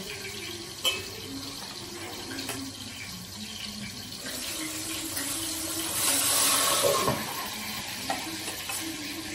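Pieces of fish frying in oil in a kadai: a steady sizzle, with a couple of sharp clicks of a metal utensil against the pan early on. The sizzle swells briefly about six seconds in.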